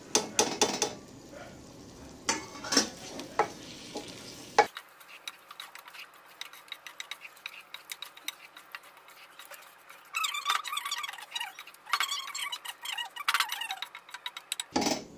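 Wooden spoon stirring chicken in masala in a non-stick pot, scraping and knocking against the pan while the food sizzles. Several sharp knocks come in the first four seconds, and louder bursts of stirring come near the end.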